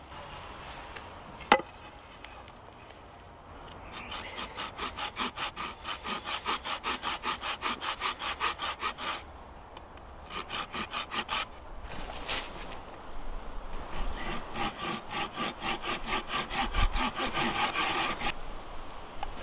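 A hand saw cutting through a wooden stick in quick back-and-forth strokes, about four a second, in three runs with short pauses between them. A single sharp knock comes about a second and a half in, before the sawing starts.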